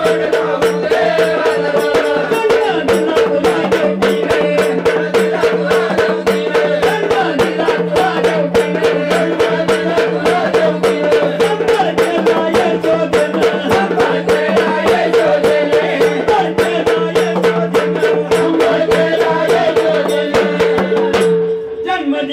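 Instrumental passage of Marathi Waghya folk devotional music: a steady held drone under fast, even jingling percussion strokes and a wavering melody line. All of it stops suddenly near the end.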